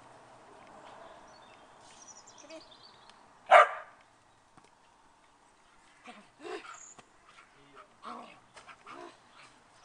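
Rough Collie barking once, loudly and briefly, a few seconds in during play; several quieter short sounds follow in the second half.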